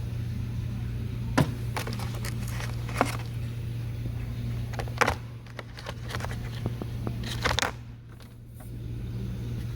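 Hand tools such as pliers, screwdrivers and picks being handled in a toolbox drawer, giving a few separate clicks and knocks over a steady low hum.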